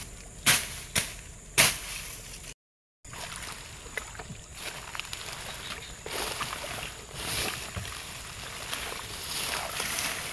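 Three sharp strikes in the first two seconds, then, after a brief dropout to silence, irregular wet sloshing and squelching of mud and swamp water with rustling vegetation as a hole is dug by hand in the swampy ground.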